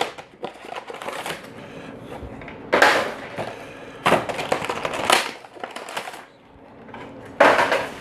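Sealed card-box packaging being cut and torn open: several short bursts of crinkling plastic wrap and scraping cardboard, with quieter crackly handling in between.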